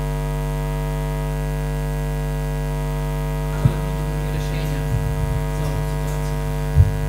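Steady electrical mains hum on the sound system, with two short thumps, one about halfway through and a louder one near the end, from a table microphone being handled.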